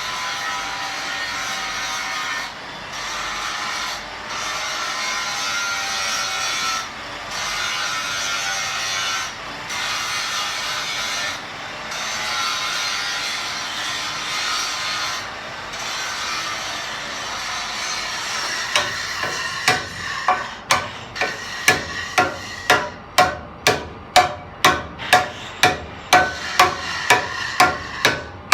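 A continuous rasping, scraping sound broken by short pauses, then from about two-thirds of the way in a steady run of sharp hammer blows, more than one a second, driving a bearing race into the lathe headstock's bearing seat.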